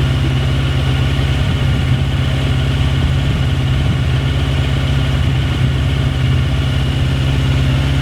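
Sportbike engine idling steadily, an even, unchanging idle while it warms up.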